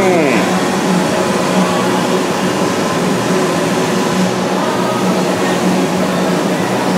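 Mazak VCU 500A five-axis vertical machining center milling under flood coolant: a steady mix of spindle, cutting and coolant-spray noise with a low hum underneath.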